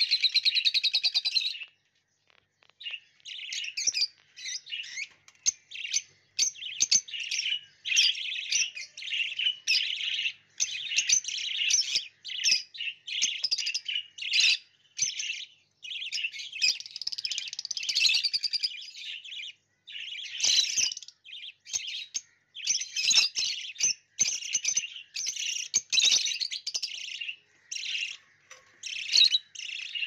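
Several budgerigars chirping and warbling in a rapid, high-pitched chatter, broken by short pauses, with a brief lull about two seconds in.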